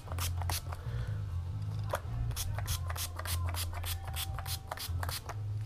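Small pump spray bottle of water spritzed many times in quick succession onto hands, a rapid run of short spritzes at some three or four a second, over a low steady hum.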